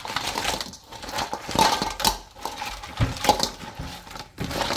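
Seasoned raw crab pieces in their shells being mixed together in a bowl, an irregular run of crunching and clattering shell on shell.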